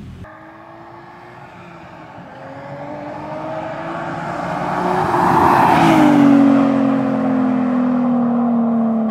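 Nissan 350Z with a single-exit straight-pipe exhaust making a flyby at speed: the 3.5-litre V6's note climbs in pitch and loudness as the car approaches, is loudest about five to six seconds in, then drops sharply in pitch as it passes and pulls away.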